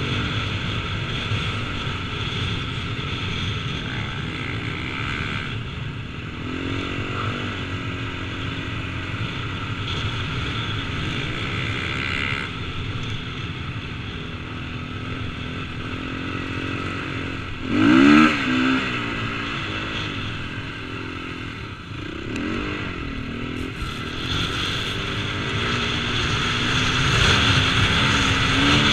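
KTM 450 motocross bike's four-stroke single-cylinder engine revving up and down while riding, with one sharp, loud rev about two-thirds of the way through.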